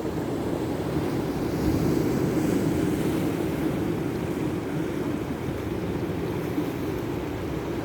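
Ocean surf washing on a beach: a steady rush that swells louder as a wave breaks about two seconds in, then settles. Wind rumbles on the microphone underneath.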